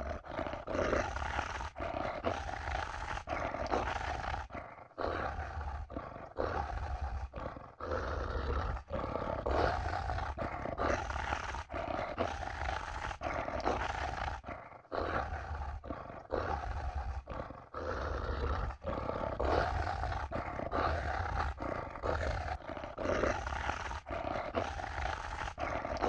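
Monster vocal sound effects: a long run of short growls and snarls, one after another with brief breaks between them.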